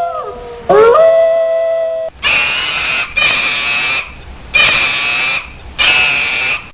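A dog howling: one long note trails off, then a second howl glides up and holds for about a second and a half. About two seconds in, it gives way to a different, shriller animal sound repeated in four bursts of about a second each.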